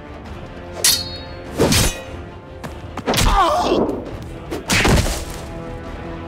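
Cartoon fight sound effects over background music: four heavy thumps and whacks about a second apart, with a short wavering squeal riding on the third.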